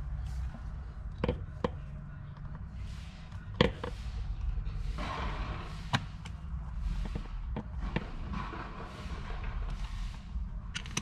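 Small sharp clicks and knocks of needle-nose pliers and a brass sleeve on the airline fitting of a rear air spring, as the sleeve is worked off to free the fitting. The loudest click comes about a third of the way in, with light scraping in between, over a steady low rumble.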